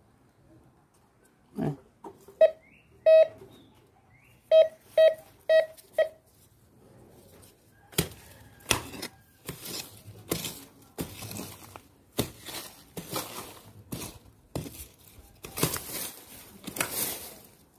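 A metal detector sounding a target, with about six short beeps all on the same pitch. From about eight seconds in comes digging in soil: rough scraping strokes, roughly one every two-thirds of a second.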